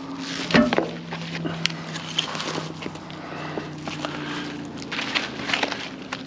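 Footsteps and the rustle and knock of plastic nursery pots and leafy plants being handled and set down on pavement, with the loudest knock about half a second in. A steady low hum sounds behind it.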